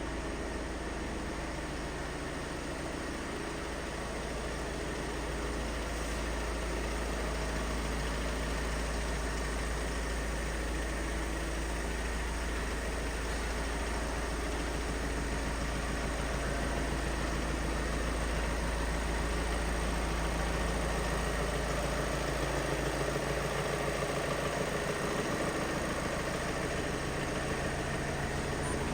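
VW T6 Transporter van's engine idling steadily, with a deep hum that grows slightly louder about five seconds in.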